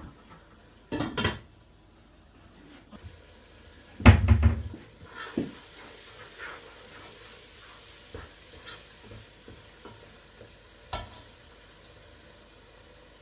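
Kitchen cookware: pots and utensils knocking, with a heavy clatter of a pot about four seconds in. After that comes a steady sizzling hiss of food cooking, with light clicks and scrapes of a utensil.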